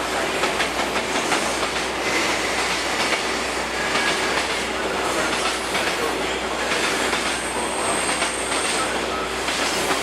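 Freight train hauled by an EF210 electric locomotive rolling past, a steady rumble and clatter of wheels over the rails with faint high wheel squeal at times.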